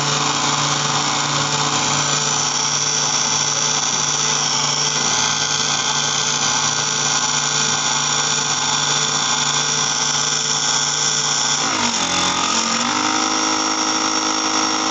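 Proxxon mini mill's motor running steadily, spinning wooden discs on a bolt in its chuck against a clamped file that shaves them round. About twelve seconds in the motor's pitch dips briefly, then settles at a new steady pitch.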